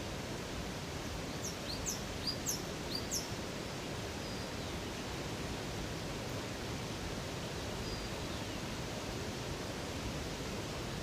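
Steady rushing of flowing river water. About one and a half seconds in, a small bird gives a quick run of five or six high, sharp chirps, and a few faint high calls follow later.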